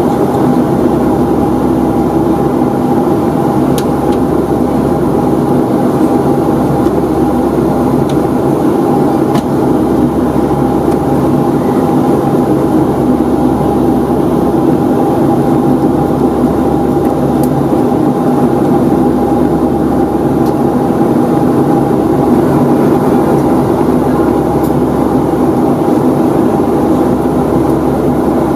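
Steady cabin drone of a Boeing 757-200 in flight: the Rolls-Royce RB211 engines and rushing airflow make a deep, even rumble with a constant hum.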